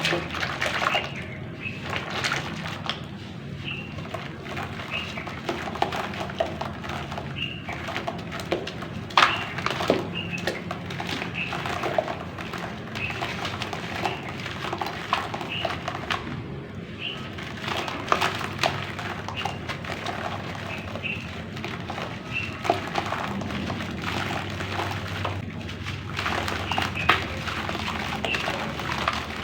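Crunchy black clay crumbling into water: many irregular crackles and snaps of breaking chunks, with a few louder cracks. Short high chirps recur in the background.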